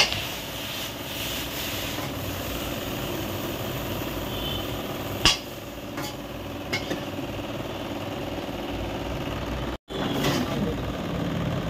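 Steady low rumble of background noise, with a sharp click about five seconds in and a fainter one a second and a half later; the sound cuts out for an instant near the end.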